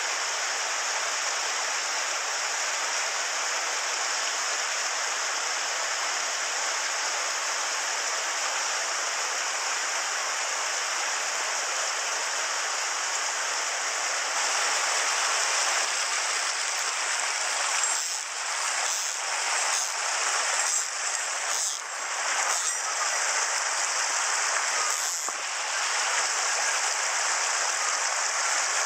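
Mountain stream rushing over a small cascade into a rock pool: a steady hiss of running water. In the second half a few brief knocks cut through it.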